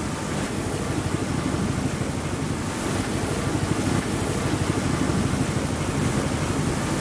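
Strong wind buffeting the microphone over the steady rush of a rough sea with breaking waves, on the deck of a sailing yacht.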